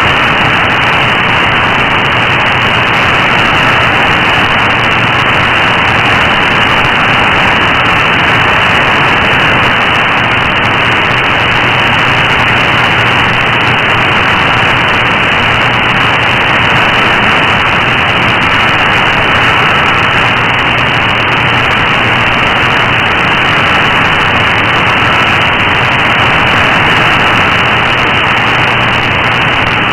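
Steady shortwave static hiss from an AM receiver tuned to 15476 kHz, with the weak signal buried in the noise and no clear programme audible. The hiss is cut off above about 3 kHz by the receiver's AM filter, with a few faint brief tones in it.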